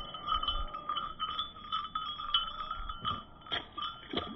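Small silver perch being thrown back and splashing into the river near the end, with a short sharp splash. Behind it, a steady high chirping chorus from calling insects or frogs runs on.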